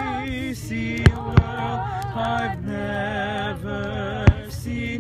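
Slow, sustained singing with vibrato, cut through by three sharp fireworks bangs: two close together about a second in and one near the end.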